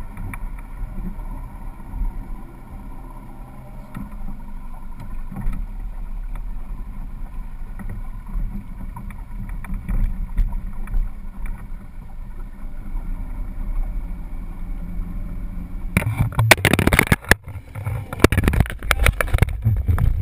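Boat motor running steadily with a low hum. About sixteen seconds in, a few seconds of loud, irregular knocking and splashing takes over.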